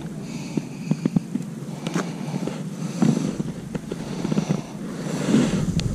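Scattered clicks and knocks with rustling as a caught fish is unhooked and handled in a rubber landing net, with a louder rustle about five seconds in.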